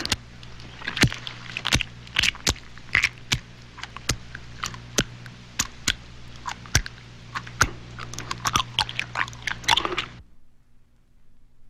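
Horror sound effect of crunching and crackling, a run of sharp, irregular snaps that cuts off abruptly about ten seconds in, leaving only a low steady hum.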